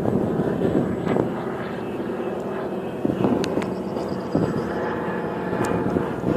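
Steady drone of the radial piston engines of a formation of DC-3 transport planes passing overhead.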